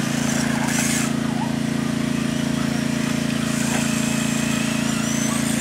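A steady low hum runs underneath throughout. Over it, the high whine of a radio-controlled car's 540 electric motor and gearbox comes and goes as it drives: briefly about a second in, then again from about three and a half seconds in.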